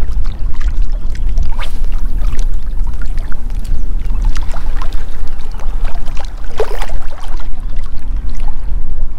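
Wind buffeting the camera microphone, a loud, steady low rumble, with scattered faint clicks and a brief louder hiss about six and a half seconds in.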